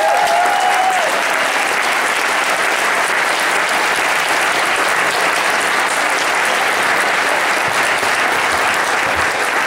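Large audience applauding, a steady, dense round of clapping that holds at full strength throughout.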